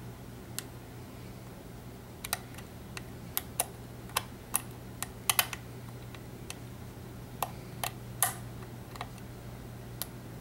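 Lock pick working the pins of an EVVA ALS euro profile cylinder during single-pin picking: scattered sharp metallic clicks at irregular intervals, over a steady low hum.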